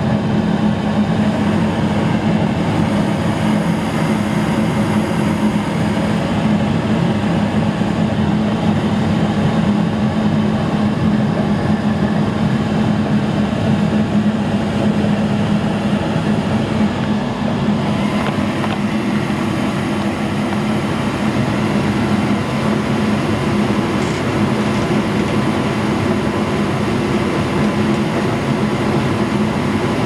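Coleman TG9S gas furnace running steadily just after start-up with its burners lit: a constant hum over an even rush of air and flame.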